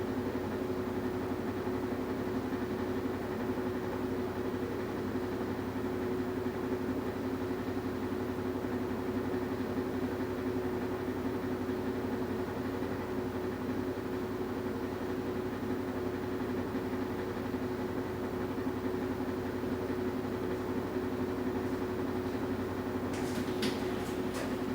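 Washing machine running with a steady motor hum, one constant tone over a low drone, with a few sharp clicks shortly before the end.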